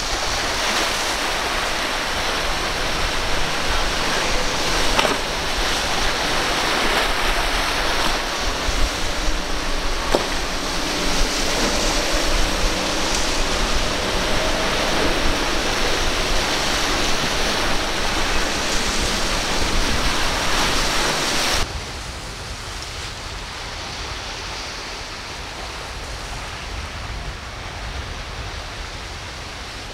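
Rush of waves and churning boat wakes, with a faint steady hum of outboard motors beneath it. About two-thirds of the way through, it drops suddenly to a quieter wash of water.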